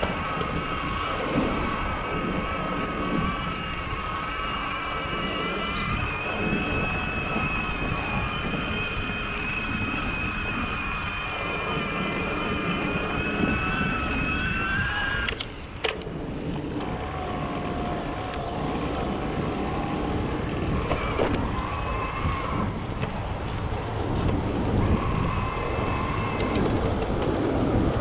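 Wind rumbling on the action camera's microphone while riding a Trek Powerfly 4 e-bike, with a steady whine from its Bosch mid-drive motor. About halfway there is a sharp click, after which the whine comes back lower in pitch.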